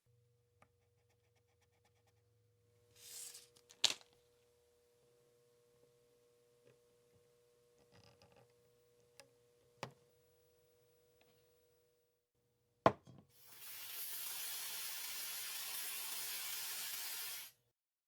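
Small hand-tool and parts-handling sounds from work on a Sony Walkman cassette player: sharp clicks and light taps, the loudest about four seconds in and again near the end of the first two thirds. Then comes a steady hiss for about four seconds that stops abruptly.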